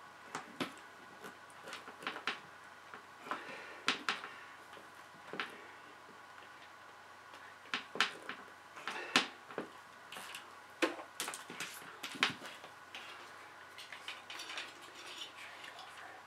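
Irregular sharp clicks and light metallic taps of a crimping tool and wires being handled, several a second at times, with the loudest clicks about eight and nine seconds in.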